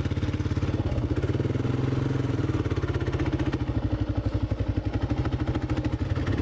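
Motorcycle engine running at low revs as the bike moves off slowly, the revs rising briefly and easing back about a second in.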